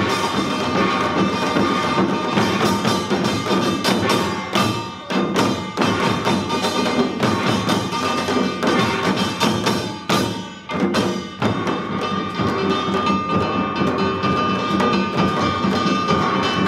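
Korean samul nori ensemble of drums and brass gongs playing together: fast, dense drumming over a steady ringing gong. The rhythm thins briefly about five seconds in and again around ten to eleven seconds in.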